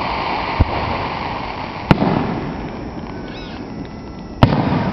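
Aerial firework shells bursting: a smaller bang just over half a second in, then two loud sharp bangs, one about two seconds in and one near the end, over a continuous noisy background.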